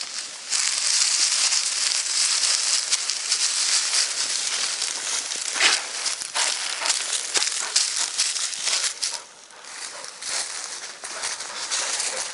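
Dry foxtail grass rustling and crackling as it brushes through, a dense run of scratchy clicks with a short lull about nine seconds in.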